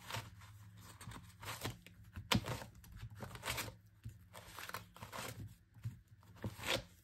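Paper and cardstock pages of a ring-binder junk journal being turned and riffled by hand: a string of short rustles and page flaps, with a couple of sharper snaps.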